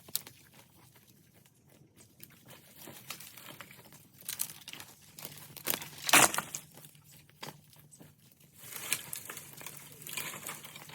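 Dry leaves, sticks and brush crunching and crackling in irregular bursts, with one louder crack about six seconds in.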